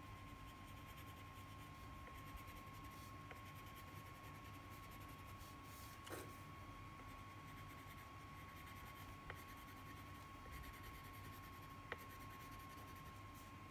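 Faint scratching of a crayon colouring on paper, with a few soft ticks. A steady, faint high whine sits underneath.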